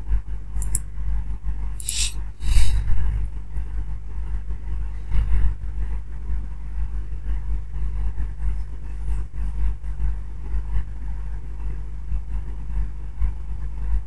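Steady low rumble of background noise, with a few short sharp clicks about two seconds in, typical of computer mouse clicks.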